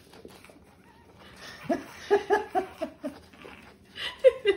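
Seven-week-old pug puppy being tickled: faint scratching of its claws on a wooden floor, then a quick run of short, high squeaks about two seconds in, and a few more near the end.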